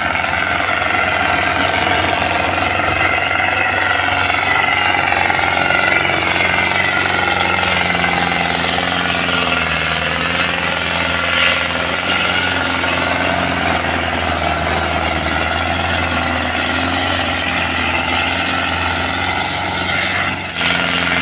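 Belarus tractors' diesel engines running hard under load as they tow a stuck tractor through mud, a loud steady clattering drone whose pitch rises and falls a little. It breaks off briefly near the end and picks straight up again.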